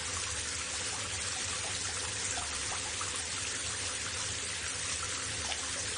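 Steady white-noise recording of running water mixed with a vacuum cleaner: an even hiss with a low steady hum underneath and faint irregular trickling blips.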